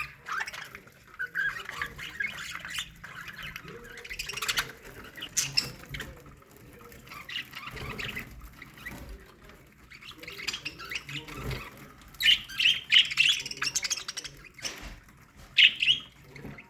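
Many budgerigars chirping and chattering together, with louder squawking bursts about twelve to fourteen seconds in and again near the end.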